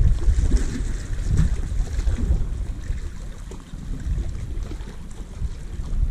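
Wind buffeting the microphone: a gusty low rumble that eases off gradually, with the sea washing against the rocks underneath.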